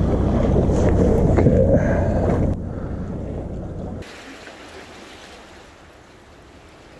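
Wind buffeting the microphone over the wash of sea waves on breakwater rocks. The loud, low roar drops abruptly about two and a half seconds in and again at about four seconds, leaving a faint, even wash of wind and sea.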